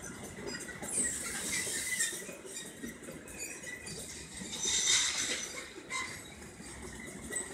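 Covered freight wagons rolling past on the rails: a continuous clattering rumble with short high-pitched squeals from the wheels, the loudest burst of squealing about five seconds in.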